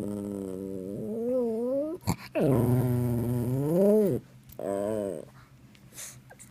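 Miniature boxer dog making three drawn-out vocal moans whose pitch wavers up and down; the middle one, about two seconds in, is the loudest and rises then falls, and the last is short. A brief click falls between the first two.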